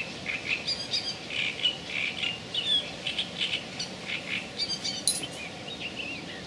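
Small birds singing, a quick run of chirps and trills, with one brief sharp click about five seconds in.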